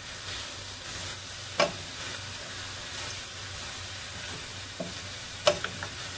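Vegetables and meat sizzling steadily in a stainless steel pan on medium heat while a wooden spatula stirs them, with sharp knocks of the spatula against the pan about one and a half seconds in and again near the end.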